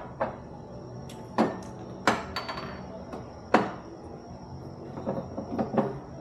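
Dishes and a glass being set down on a table: four sharp knocks about a second apart, then a cluster of lighter clinks and taps near the end.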